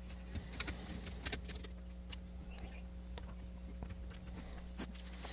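Faint scattered clicks and light metallic clinks as the lid of a pressure paint tank is set in place and its clamps are handled, over a low steady hum.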